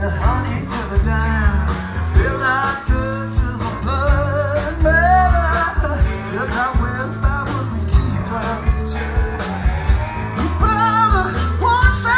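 A live rock band playing loud: drum kit with cymbals keeping a steady beat, electric bass, and electric guitars, with a man singing over it.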